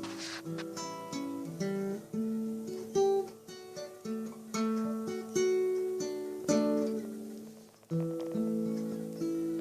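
Solo acoustic guitar playing a slow melody over chords, its notes plucked and left to ring, with a short break before a new phrase near the end.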